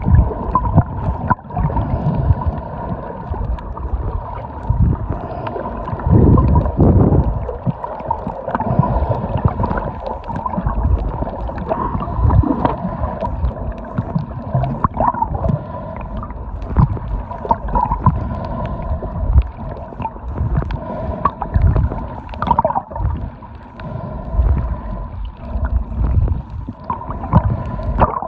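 Underwater sound from a submerged camera: muffled churning of moving water with irregular low knocks and surges, and a steady thin high tone running underneath.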